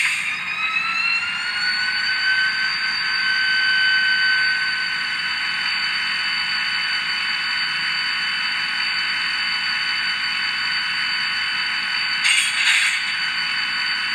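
Sound decoder of an Atlas HO-scale GP40 model locomotive playing its diesel prime-mover sound through the model's small speaker: a whine that rises in pitch over the first two seconds, then holds steady. A short, louder noisy burst comes about twelve seconds in.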